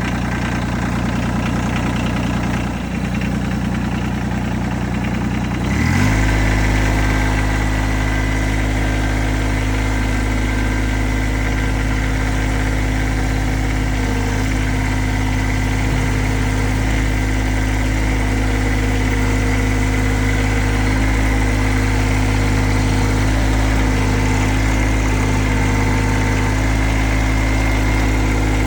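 Kubota BX23 tractor's three-cylinder diesel engine idling. About six seconds in it speeds up quickly, then runs steadily at the higher speed, with a thin steady whine over the engine note.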